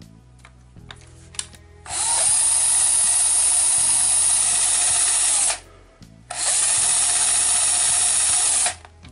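Electric drill with a 4 mm bit boring into the plastic casing of a black HP 970 ink cartridge under very light pressure. It runs in two bursts, about three and a half seconds and then about two and a half seconds, with a short pause between them.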